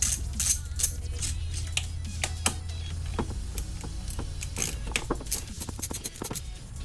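Metal hand tools clicking and clinking irregularly, many small sharp ticks, over a steady low hum.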